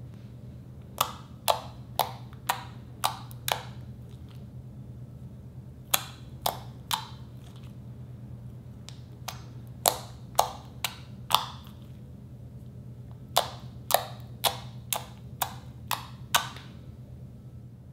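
Thick slime pressed and poked with fingers, giving sharp pops about two a second in four short runs of three to seven.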